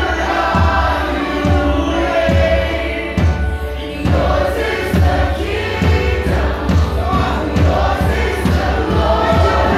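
A live worship band with a choir of singers over a drum kit keeping a steady beat. The drums ease off briefly a little past three seconds in, then the full beat comes back.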